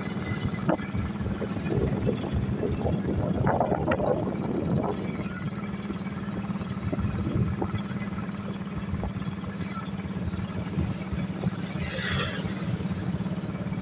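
Road traffic at close range: motorcycle and small pickup-truck engines running, with a steady low engine drone throughout and a brief rushing noise near the end.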